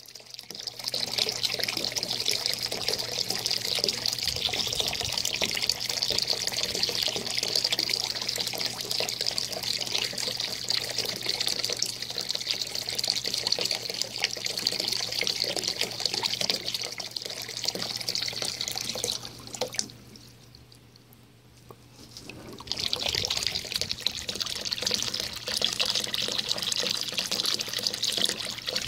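A garden hose's thin stream pouring and splashing steadily into water in a plastic kiddie pool. The splashing drops away for about three seconds around two-thirds of the way through, then resumes.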